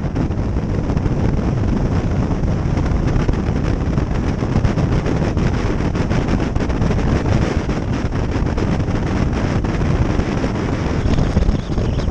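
Wind rushing over the microphone of a moving electric motorcycle: a steady, loud buffeting with a low rumble.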